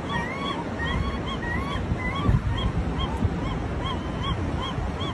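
Gull calling in a quick run of short rising-and-falling notes, about two or three a second, over a steady low rumble of wind on the microphone.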